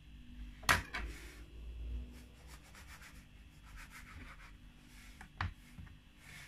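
A knife cutting the crust off a slice of bread on a plastic chopping board: the blade rubs and scrapes through the crust. There is a sharp knock against the board under a second in, a second knock just after, and another knock near the end.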